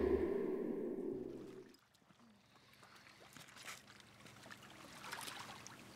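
A low musical drone fades out over the first second or two. After a moment of near silence, faint trickling water with scattered small clicks comes in.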